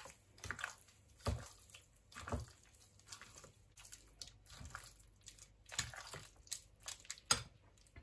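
Thinly sliced raw steak being tossed with a wet seasoning mix in a bowl: irregular soft squelches and clicks, a few louder than the rest.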